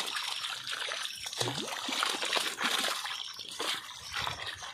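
Irregular splashing and sloshing of water as a mass of fish flap in a cast net held in shallow water and are scooped out by hand.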